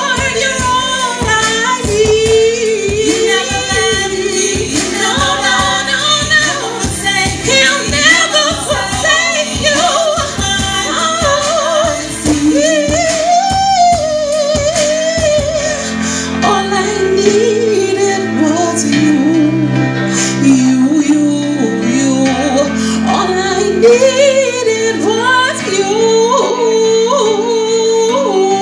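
A woman sings a slow gospel song into a microphone over backing music. A steady beat drops out about halfway through, leaving long held chords under her voice.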